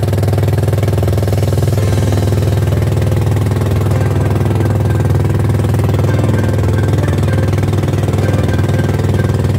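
Outrigger boat's inboard engine running steadily under way, a loud, even, rapid-firing drone.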